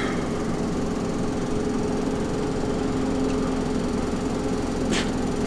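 A steady engine hum, running evenly at idle with a constant low drone and steady tone. One sharp click about five seconds in.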